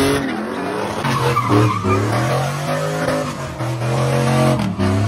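Car engine revving hard, its pitch climbing and dropping again and again, over the steady hiss of tyres spinning and screeching in a burnout. The sound cuts off suddenly at the end.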